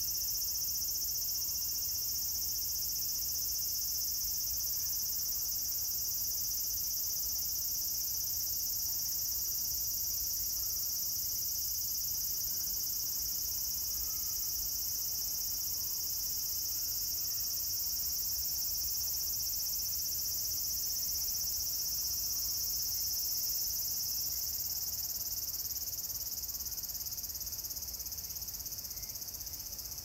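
Cicadas calling in a steady, high-pitched continuous drone that grows fainter over the last few seconds.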